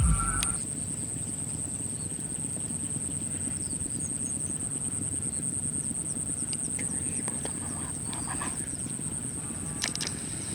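Outdoor ambience: a steady high-pitched buzz and a low rumble, with a few faint bird chirps.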